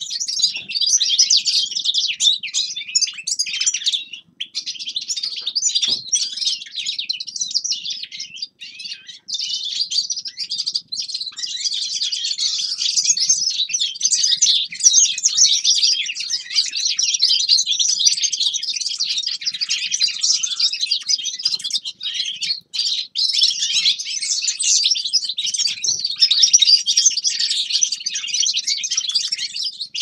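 Caged finches, European goldfinches among them, singing a dense, continuous high twittering song with only brief pauses.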